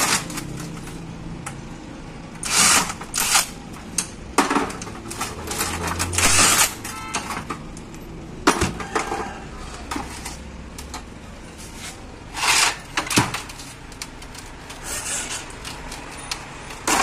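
Workshop handling noise: short clanks and rattles of metal tools and motorcycle fork tubes knocked about on a metal workbench, about a dozen separate bursts with gaps between them.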